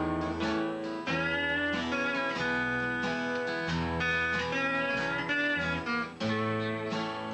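Lap steel guitar playing a Hawaiian-style melody with sliding, held notes, over a strummed acoustic rhythm guitar and an electric bass guitar.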